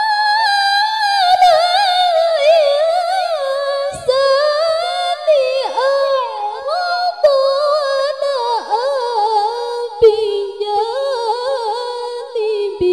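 A woman's solo Qur'an recitation in the melodic tilawah style, sung into a microphone: one high voice holding long ornamented phrases that wind up and down in pitch, with a short break for breath about four seconds in and a phrase that falls in pitch near the end.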